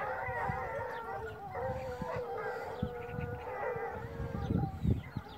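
Several Ariégeois hounds baying together, long overlapping howling bays at different pitches, as a pack gives voice. Low buffeting thumps run underneath, loudest near the end.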